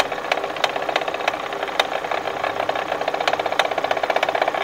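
Kia engine running with a fast, even knocking tick and sharper clicks every half second or so, picked up at the water pump. The mechanics trace the noise to the water pump and blame its bearing.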